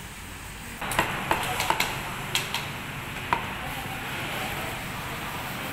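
Meat cleaver chopping roast pork on a thick wooden chopping block: a run of about seven sharp, irregular chops starting about a second in, the last a little after three seconds in, over steady shop background noise.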